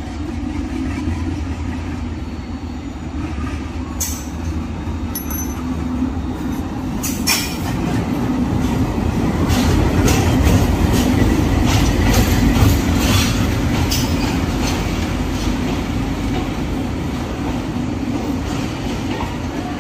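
Moving passenger train heard from inside the coach: a steady low rumble of wheels on the track. It grows louder in the middle, where the wheels clack sharply over the track many times in a row.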